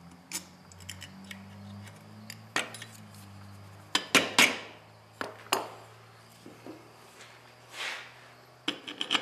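Steel clutch parts of an Allis-Chalmers WD-45 hand clutch clinking and scraping as the plates and springs are worked into line, in a series of sharp metal clicks, loudest about four seconds in, with a couple of short scrapes.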